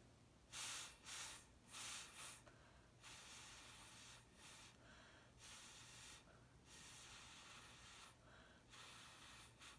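Breath blown through a drinking straw onto wet acrylic pour paint to spread it into wispy edges: three short puffs, then longer, steadier blowing that hisses through the straw.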